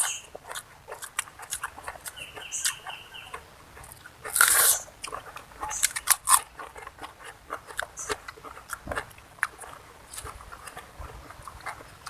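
A person eating close to the microphone: chewing, lip smacking and crunching of catfish and raw vegetables, as a run of small wet clicks, with a louder crunch about four and a half seconds in.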